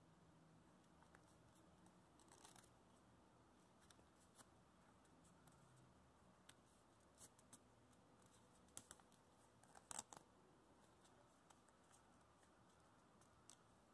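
Very faint crinkles and crackles of white paper being folded and creased by hand, over quiet room tone, with the loudest few crackles about ten seconds in.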